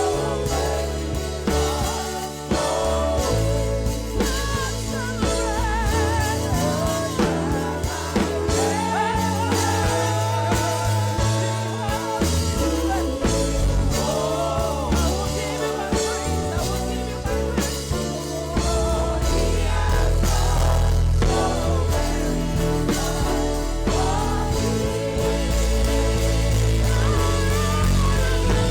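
Live gospel praise-and-worship band playing, with bass notes and drums under a wavering sung melody with vibrato.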